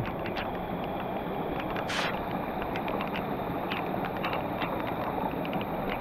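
Muddy flash-flood water rushing down a forest stream, a steady rushing noise, with scattered small ticks and one louder click about two seconds in. The stream has risen suddenly after a short heavy downpour.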